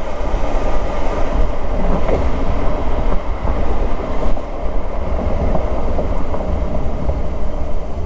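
1986 Mercedes-Benz 560 SL on the move: steady road and wind noise with a heavy low rumble.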